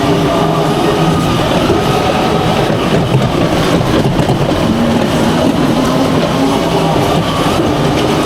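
Amusement-park racetrack ride car running: a steady mechanical hum with a faint wavering whine.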